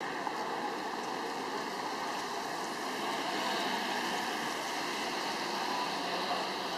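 Street traffic on a wet road: a steady hiss of tyres from passing cars.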